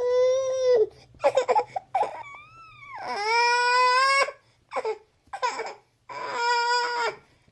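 A baby's high-pitched cooing and fussy crying: three long, held calls with short choppy babbles and a soft gliding coo between them.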